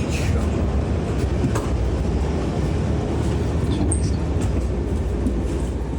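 Steady low rumble of a moving ÖBB passenger train heard from inside the carriage, with a few faint clicks.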